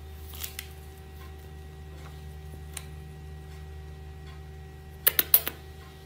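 Sun conure biting and nibbling a piece of fruit held in its foot: a few sharp beak clicks, then a quick cluster of louder snaps about five seconds in, over a steady low hum.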